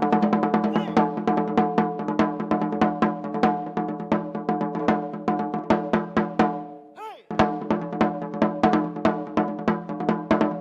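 Recorded wadaiko track: katsugi-oke (shoulder-carried barrel taiko) drumming in rapid strokes over a steady sustained tone. About seven seconds in the music drops out briefly with a short gliding tone, then the drumming comes back in.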